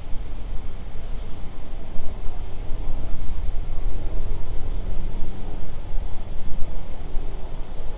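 A vehicle engine idling: a steady low hum with no change in speed.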